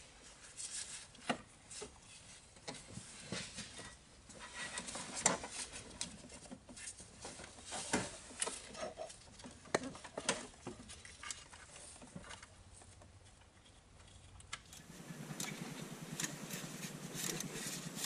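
Irregular metallic clinks and knocks of hand tools and parts being worked in a car's engine bay, turning to a denser rattling about three seconds from the end.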